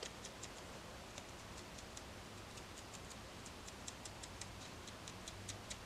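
Fine 38-gauge felting needle jabbing lightly and repeatedly into wool, making faint quick ticks several times a second, roughing up the surface fibres to fluff and blend them.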